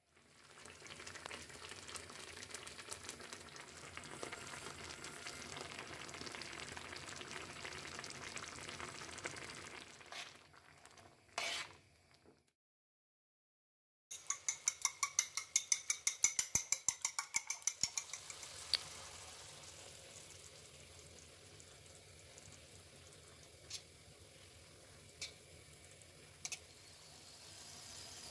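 Chopped tomatoes and onion sizzling in butter in a frying pan while a metal spoon stirs them. After a short break there is a quick, even rattle of about five shakes a second, a salt shaker being shaken over the raw eggs. Then the egg-and-tomato mixture sizzles quietly in the pan, with a few single clicks.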